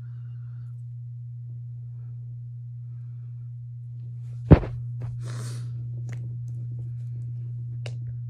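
A steady low electrical-sounding hum throughout. About halfway through, the phone is handled and repositioned: one sharp knock, a short rustle, then a couple of faint clicks.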